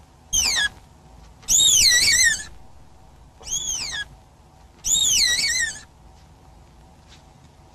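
Spotted deer fawn bleating: four high, wavering cries, the first short and falling, the others longer and rising and falling in pitch, stopping after about six seconds.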